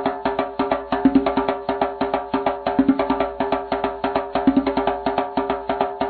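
Background music with a fast, even percussive beat over steady held notes.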